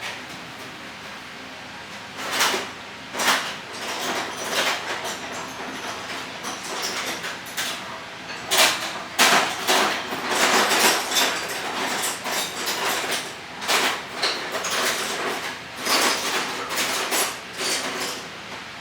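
Metal hand tools clinking, clanking and scraping in an irregular run of knocks, like someone rummaging through a toolbox for a stubby screwdriver; it starts about two seconds in.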